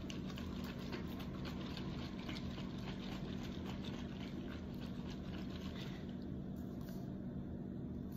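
Liquid sloshing inside a hand-held water bottle as it is shaken to mix a drink powder into the water: a quick irregular run of small splashes that thins out about six seconds in, over a steady low hum.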